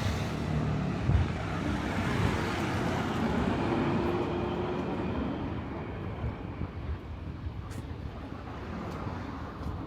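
City street ambience dominated by the low rumble of passing traffic, which dies away over the second half.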